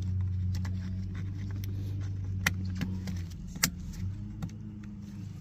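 Plastic wiring connectors being pushed into a steering-column clock spring: a few light plastic clicks, two of them sharper about two and a half and three and a half seconds in, over a steady low hum that fades briefly near the end.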